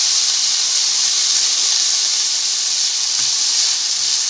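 Diced vegetables (corn, peas, carrot and capsicum) sizzling in hot oil in a frying pan as they are sautéed and stirred: a steady hiss.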